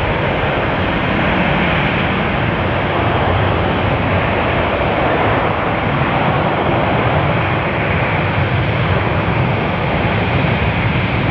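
Jet airliner engines running, a steady, even rushing noise with no clear pitch.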